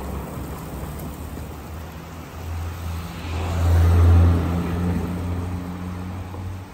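A motor vehicle passing close by on the street: a low engine rumble that swells to its loudest about four seconds in and then eases off, over steady traffic noise.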